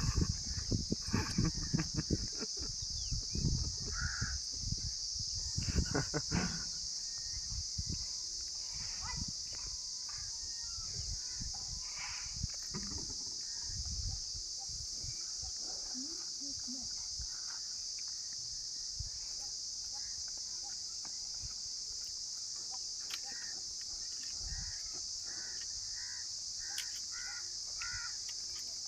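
Rural outdoor ambience: a steady high-pitched insect drone, with crows cawing now and then. Low thumps and rustling come through in the first several seconds.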